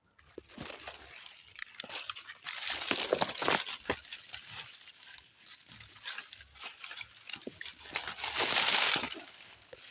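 Dried bean plants rustling and crackling as they are handled during harvest, with sharp snaps and crunches among the dry leaves and pods; a longer, louder rustle comes about eight seconds in.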